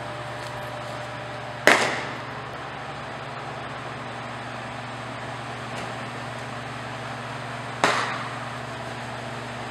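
Two sharp smacks of a softball, one about two seconds in and one near the end, each echoing through a large indoor training hall. A steady hum of building ventilation runs underneath.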